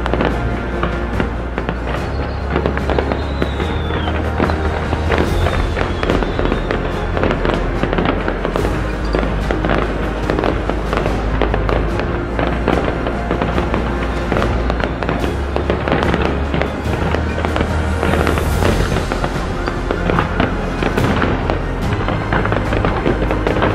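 Fireworks bursting and crackling in quick succession throughout, over loud music with a steady deep bass.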